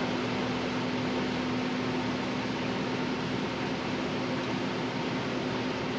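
Vintage automatic washing machine spinning: a steady machine hum with one constant low tone under an even rushing noise. The machine has no outer tub, so the spun-out water is thrown straight out of the tub.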